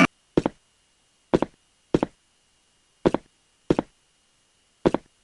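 Six short, dull knocks, mostly in pairs a little over half a second apart with gaps of about a second between pairs, on an otherwise silent track.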